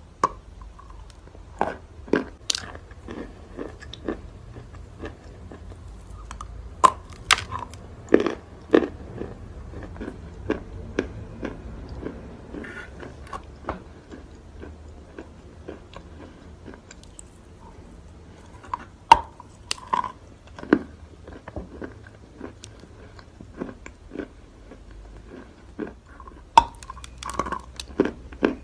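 Close-up crunching and chewing of natural white chalk: irregular crisp bites and crackles as pieces are bitten off and ground between the teeth, the loudest around a third of the way in and again near the end.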